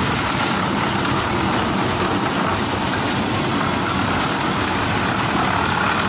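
Lift-type concrete mixer's engine running at a steady speed, turning the drum.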